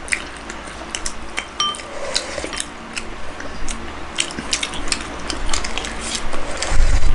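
A ceramic soup spoon clinking and scraping against a porcelain bowl, with scattered small clicks of eating at the table. A low bump near the end.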